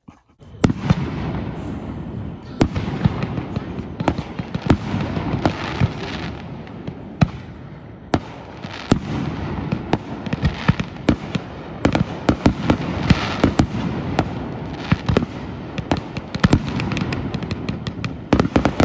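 Fireworks display: aerial shells bursting in a dense, irregular run of sharp bangs over continuous crackling, starting about half a second in.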